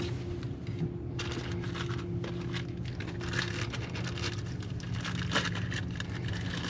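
A steady low mechanical hum, with scattered rustling and a few light clicks of parts being handled.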